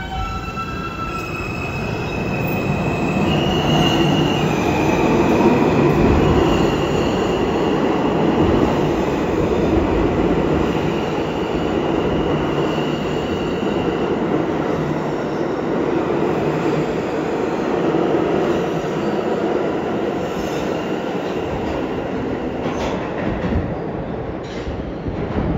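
R160A-2 subway train pulling out of the station: a high whine from its propulsion steps up in pitch as it gets moving, then the cars rumble and clatter past on the rails. A few sharp clanks of wheels over rail joints come near the end.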